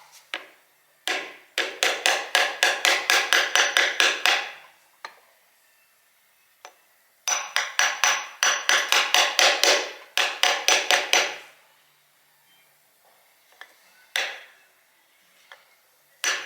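Hammer rapidly tapping a metal seal driver, seating a seal in a Dana 45 axle. The knocks are metallic and ringing, about five a second, in three bursts of a few seconds each, with a lone tap near the end.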